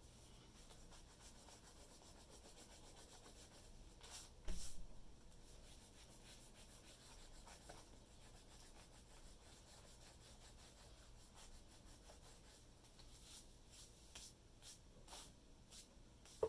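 Faint rubbing of an eraser over a sketchbook page in short scuffing strokes, removing pencil lines, with one louder bump about four seconds in and a quick run of strokes near the end.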